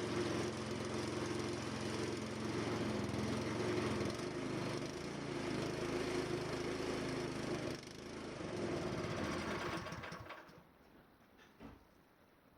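Small petrol engine of a snowblower running steadily, dipping briefly about eight seconds in and then dying away about ten seconds in.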